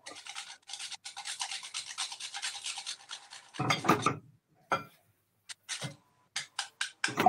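Hand grater rasping in quick back-and-forth strokes for about three seconds, then a louder clatter of kitchenware and a few short knocks.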